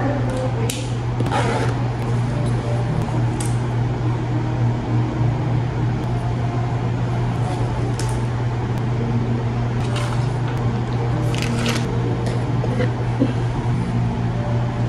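A steady low hum from a small running motor, with a few short clicks and brief rustling handling noises over it.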